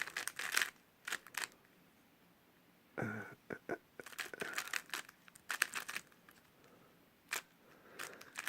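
Plastic 3x3 speedcube being turned by hand: bursts of quick clicking and clacking as its layers turn, with short pauses between bursts.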